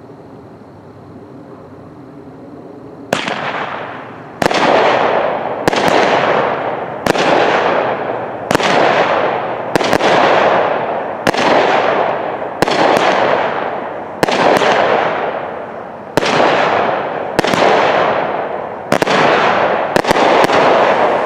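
A Phantom Fireworks 'Golden Fox' 16-shot, 200-gram cake starts firing about three seconds in. It shoots roughly every second and a half, and each sharp report is trailed by a crackling hiss that fades before the next. The last few shots come in quicker succession near the end.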